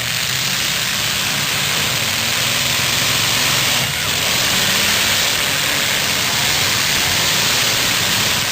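Several demolition derby cars' engines running at once, heard as a loud, steady wash of engine and exhaust noise without distinct crashes.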